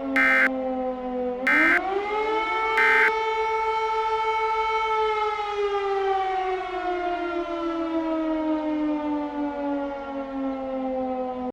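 Civil defense siren wailing: its pitch rises about a second and a half in, holds, then slowly falls. Over its start come three short buzzy bursts of an Emergency Alert System end-of-message data signal.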